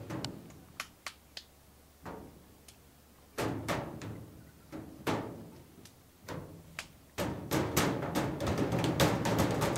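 Hands slapping and drumming on a hollow white surface: separate knocks at first, then a fast, louder flurry of many hits from about seven seconds in.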